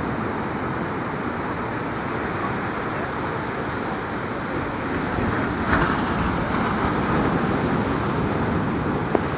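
Sea waves washing onto a beach: a continuous rush of surf that swells louder about halfway through, with a brighter surge of breaking water shortly after. A short click comes near the end.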